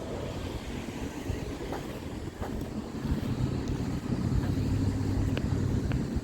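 Wind rumbling on the microphone, with a low steady motor hum that comes in about halfway through.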